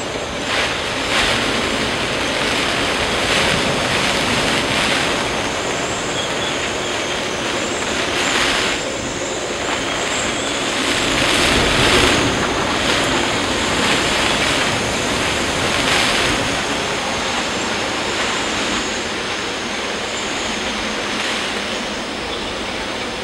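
Storm surf breaking over a harbour breakwater and gusting wind, a continuous rushing noise that swells in surges and is loudest about halfway through, with wind buffeting the microphone.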